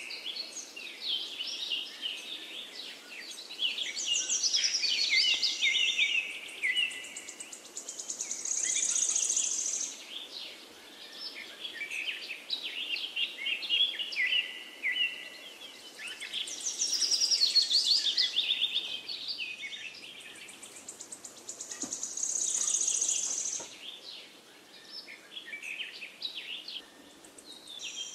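Songbirds chirping and singing in quick, overlapping phrases, with a buzzy high trill twice, over a faint steady hiss.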